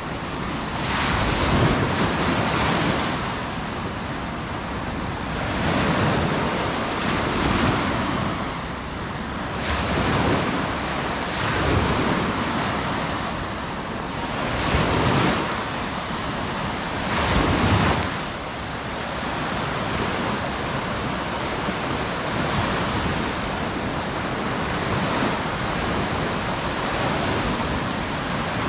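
Sea surf breaking and washing up on a beach, swelling every few seconds, the swells stronger at first and evening out near the end, with some wind on the microphone.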